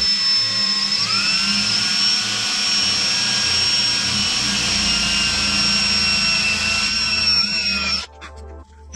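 Power drill spinning fast with a large bit, boring a hole in a mountainboard deck for a threaded insert: a steady whine that steps up in pitch about a second in, sags slightly near the end and then stops abruptly.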